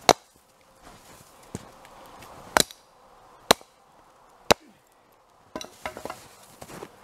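Chopper 1 splitting axe striking firewood rounds four times with sharp cracks, the first the loudest, the later blows about a second apart. Near the end, boots crunch in packed snow.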